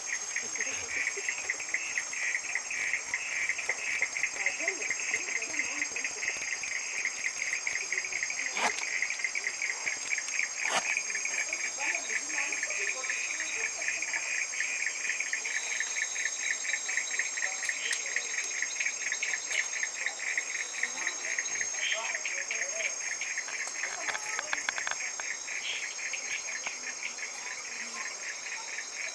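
Insects chirping, cricket-like: a fast, even pulsed trill that carries on without a break, with a steady high-pitched whine above it. Two sharp clicks come about a third of the way in.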